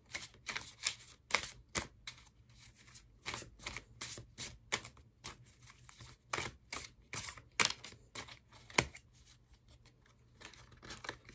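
A tarot card deck being shuffled overhand by hand: an irregular run of quick clicks and slaps of the cards, a few of them louder than the rest.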